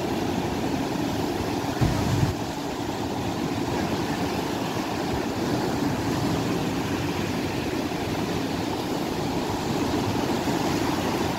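Surf breaking along the beach: a steady wash of waves, with a brief low thump about two seconds in.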